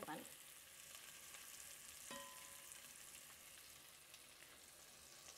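Flour-dusted meatballs frying gently in a pan over a low flame: a faint, steady sizzle with fine crackles. A short ringing tone sounds about two seconds in.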